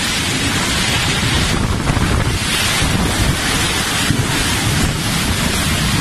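Storm wind and heavy rain lashing in violent gusts, the wind buffeting the phone's microphone with a heavy rumble. The hiss swells and eases every second or so.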